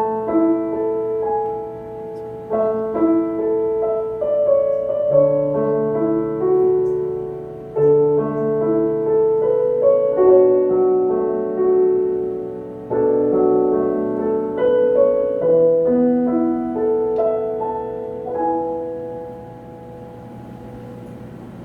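Piano playing a slow, gentle melody over held chords, the notes ringing on and dying away over the last few seconds.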